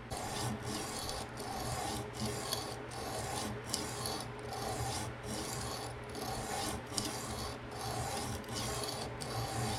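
Coarse 160-grit diamond resin-bonded stone rasping back and forth along an M390 steel knife edge on a TSProf Pioneer fixed-angle sharpener, in a steady rhythm of a little more than one stroke a second.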